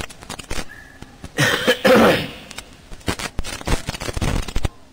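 A person coughing about a second and a half in, amid scattered short clicks and knocks.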